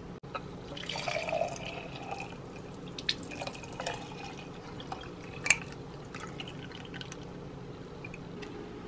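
Thick homemade juice pouring and dripping from a glass into a sink, in irregular splashes and drips, with a sharper splash about five and a half seconds in.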